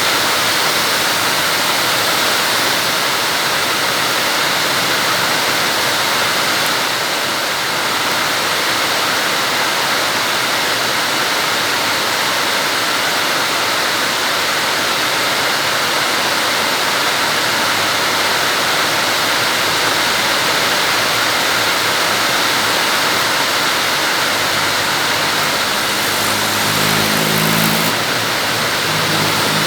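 Heavy rain falling in a steady hiss. About 25 seconds in, a vehicle engine comes up under it and passes near the end.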